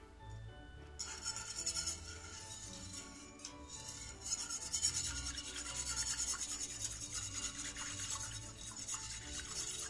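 Wire whisk beating a milk mixture in a stainless steel pot: fast, rhythmic scraping of the wires against the metal, starting about a second in.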